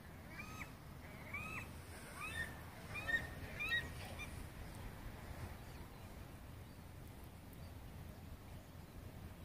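Birds calling: a quick series of short, arched calls, about eight or nine over the first four seconds, the loudest around three seconds in, then only a low steady background rumble.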